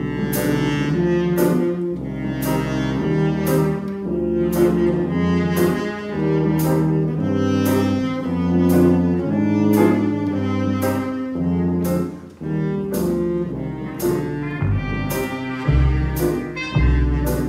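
A jazz ensemble of clarinet, saxophones, trumpet, trombone, French horn, tuba, piano, double bass and drums playing: sustained low horn chords over a moving bass line, with a steady beat.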